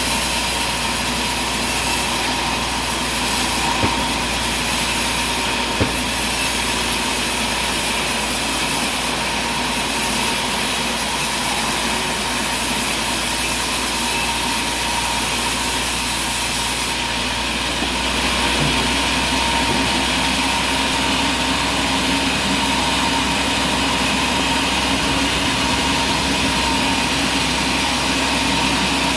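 Sawmill machinery running steadily under a constant mechanical noise with a steady whine, with two brief knocks about four and six seconds in.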